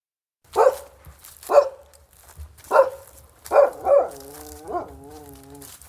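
Dalmatian barking: five sharp barks, the last two close together, followed by a drawn-out wavering whine with a short yelp partway through.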